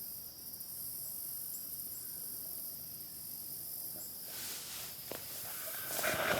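A steady, high-pitched trilling of insects in woodland, like crickets, holding an even pitch. About two-thirds of the way in, footsteps start rustling through undergrowth, with a few snaps.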